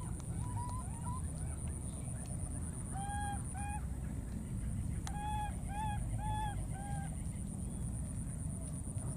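Baby macaque crying in short calls that rise and fall in pitch: a few quick ones at first, two longer ones about three seconds in, then a run of four about five seconds in.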